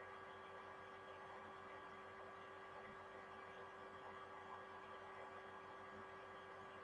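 Near silence: only a faint steady electrical hum and hiss from the recording's background.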